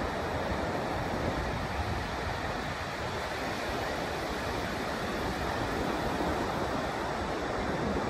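Ocean surf breaking and washing onto a sandy beach in a steady wash, with wind rumbling on the microphone.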